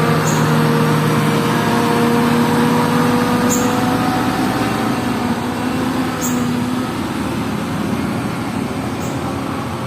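Heavy diesel bus engine labouring up a steep climb under load: a steady drone whose tones shift slightly, slowly getting quieter.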